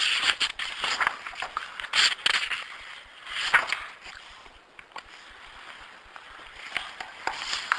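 Irregular rustling and handling noises with small clicks, coming in bursts: near the start, about two seconds and three and a half seconds in, and again near the end, quieter in between.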